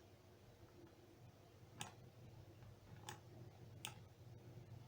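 Near silence broken by three faint, sharp clicks a second or so apart, from the digital pen used to write on screen.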